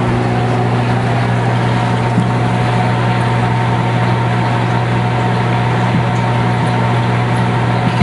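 Microwave oven running: a steady, loud hum over an even rushing noise, with a few faint clicks now and then.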